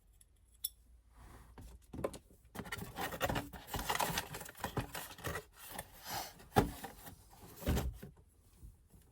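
Quick release steering wheel kit being unpacked by hand: packaging rustling and small metal parts rubbing and clinking in irregular bursts, starting about a second in.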